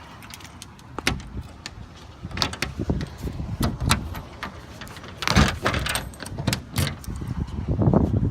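Irregular knocks and clatters of something being handled, with a louder clattering burst about five seconds in and another near the end.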